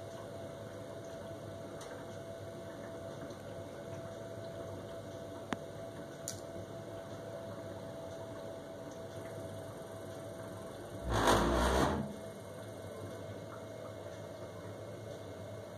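Worcester Bosch 29CDi Classic combi boiler running with a steady hum, broken about eleven seconds in by a loud rumble lasting about a second. The rumble comes as the gas burner turns on or off, a fault that ends with the boiler throwing its EA error code and shutting down.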